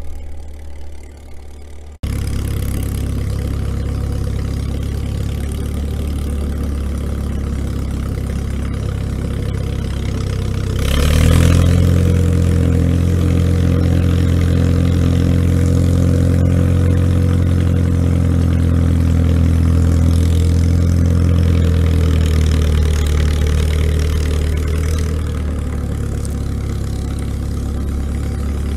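International Harvester TD-6 crawler tractor's four-cylinder diesel engine running close by while it tows a tire drag through snow. The engine is quieter for the first couple of seconds; its note rises and grows louder about eleven seconds in, holds steady, then eases back near the end.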